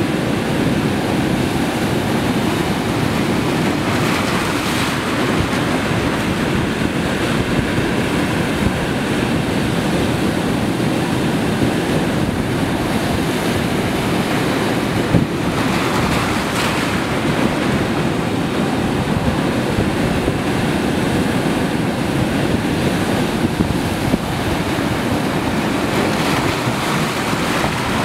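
Ocean surf breaking on a rocky shore: a steady rushing wash that swells briefly about four seconds in and again around fifteen to seventeen seconds in, with wind on the microphone.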